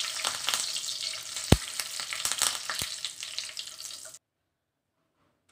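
Curry leaves sizzling and crackling in hot oil in a wire spider strainer, with sharp pops, frying in the oil's leftover heat after the stove is switched off. The sizzle fades slightly and cuts off abruptly about four seconds in.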